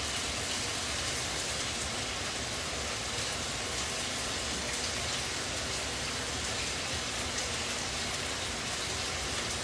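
Steady hiss of burger patties sizzling as they fry in a pan.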